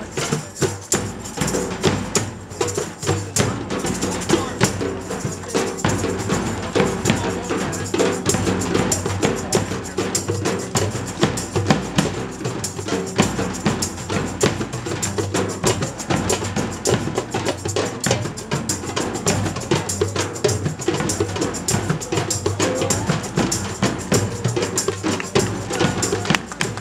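Percussion music: drums beaten in a fast, steady rhythm of dense strikes.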